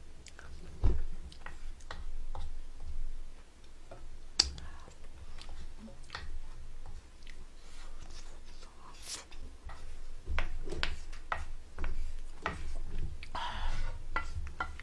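Close-miked eating: wet chewing and mouth clicks, with a wooden spoon knocking and scraping against a large metal pot as the last of the sauce is scooped out. There are a few sharper knocks, about a second in and again after about four seconds, and a longer scrape near the end.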